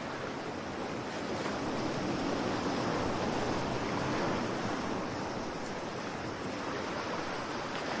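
Heavy surf of a cyclone-driven sea breaking on the shore, a steady rushing noise.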